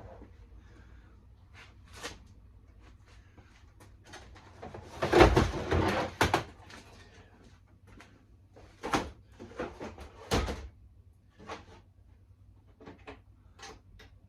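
Knocks, clunks and rattling from handling tumble dryer parts and tools during the repair. A longer clatter about five seconds in is the loudest part, followed by single knocks spaced a second or so apart.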